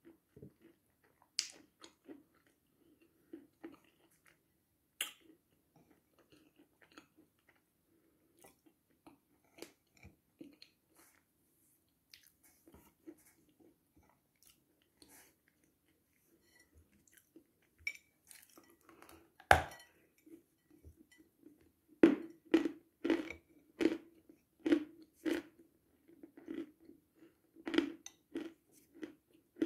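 Close-up chewing of a dry, powdery food: faint sparse mouth clicks at first, then one loud crunch and, from about two-thirds in, a run of sharp crunches about two a second.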